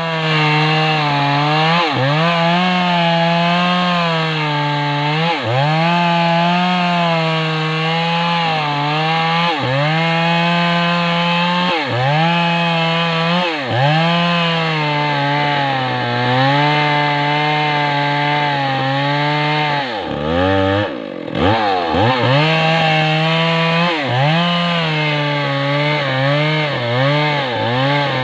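Chainsaw running at high revs while cutting through mindi wood, its engine pitch dropping briefly and recovering every couple of seconds as the chain bites. About three quarters of the way through it falls back to a low speed for a moment, then revs up and carries on cutting.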